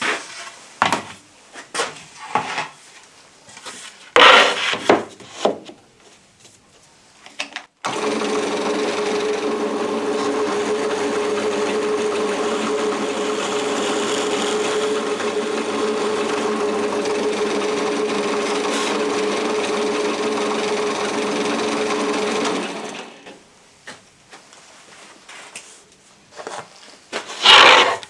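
Benchtop drill press switched on about eight seconds in, running with a steady hum for about fifteen seconds while the bit is fed slowly through melamine-coated chipboard, then switched off and winding down. Before and after, a few knocks and scrapes as the board is handled on the drill table, the loudest about four seconds in and near the end.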